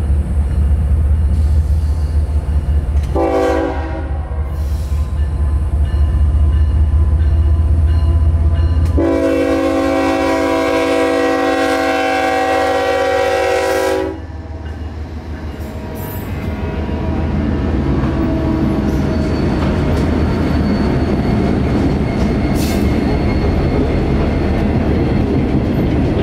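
A freight train passing: the diesel locomotives' deep engine rumble, with a short horn blast about three seconds in and a long blast of about five seconds from around nine seconds. After that the rumble falls away and the railcars roll past with steady wheel noise that grows louder.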